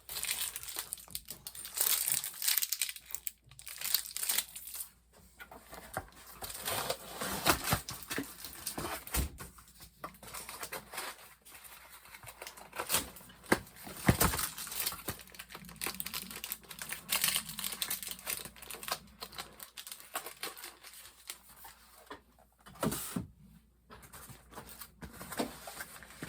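Packaging of a boxed ceiling fan blade set crinkling and rustling as it is handled, in irregular crackly bursts with occasional sharper tearing sounds.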